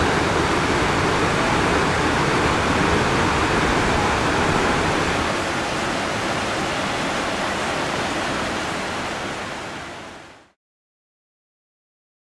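Whitewater rapids rushing through a rocky gorge: a steady, even rush of water that fades out about ten seconds in.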